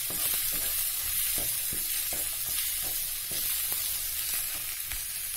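Onion, tomato and spice masala sizzling in hot oil while it is fried down, with a spatula stirring through it in irregular strokes.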